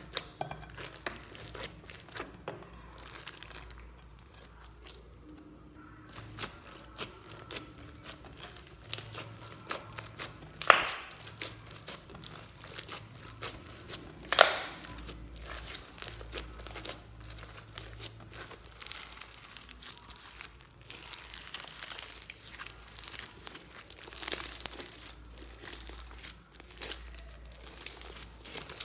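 Hands kneading, squeezing and stretching foam-bead slime (floam): a dense stream of small wet crackles and crinkles as the beads and slime are worked, with two much louder sharp pops about 11 and 14½ seconds in.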